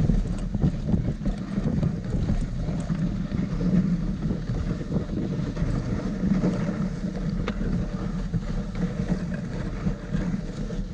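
Dog sled runners scraping over snow as the dog team pulls, a steady low rumble with hiss above it. Wind buffets the microphone.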